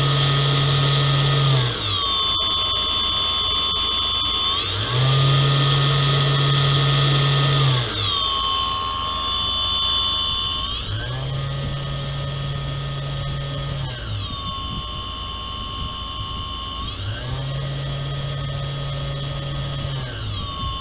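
Blower fan of a 3D-printed ventilator, driven by an N2830 brushless motor, whining as it cycles speed: it rises in pitch, holds for about three seconds, falls and holds low for about three seconds, four times over. This is PEEP mode switching between the higher inspiratory pressure and the lower end-expiratory pressure. Slightly quieter from about eight seconds in.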